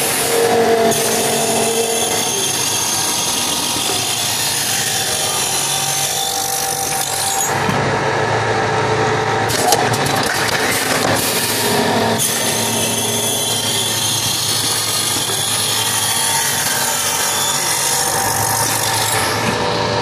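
Automatic brass padlock-body machine running, cutting and milling brass blanks: a dense, steady machining noise over motor hum, with a sharp knock about ten seconds in.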